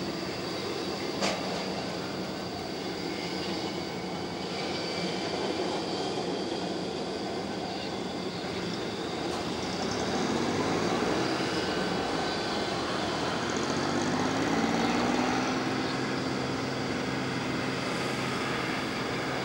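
Boeing 727-200 freighter's three JT8D turbofans running at taxi power, a steady jet whine over a rushing noise. The whine swells a little partway through, and a lower hum rises in pitch near the end.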